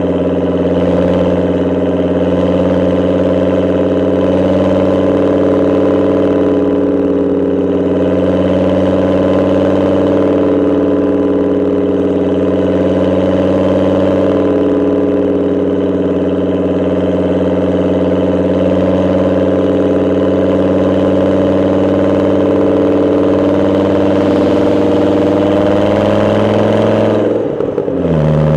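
Volvo S70's five-cylinder engine running steadily at an even pitch. Near the end the sound dips briefly and the engine settles at a lower pitch.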